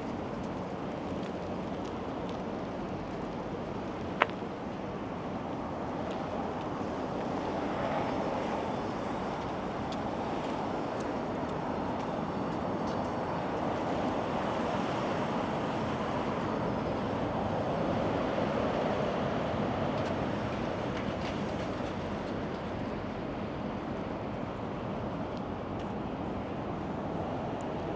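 Steady rushing noise of wind and tyres on a moving bicycle, swelling louder twice, with one sharp click about four seconds in.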